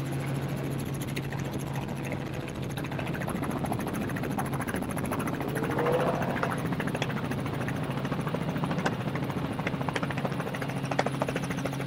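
Steady low drone of a helicopter overhead, with a Can-Am Maverick X3 race UTV's engine rising in pitch and getting louder about six seconds in, followed by scattered sharp ticks.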